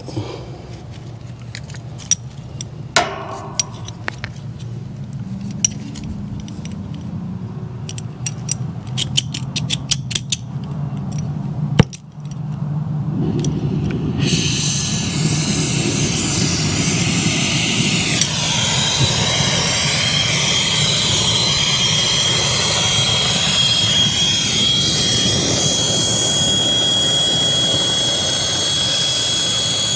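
Small clicks and taps, then a sharp pop about twelve seconds in as a brazing torch is lit. The torch then burns with a steady loud hiss, and a thin high whistle joins in partway through, as the flame heats the copper suction line joint at the AC service valve to braze a refrigerant leak.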